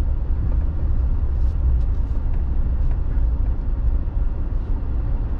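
Steady low rumble of a vehicle's engine and road noise heard from inside the cabin while driving, with a few faint light clicks.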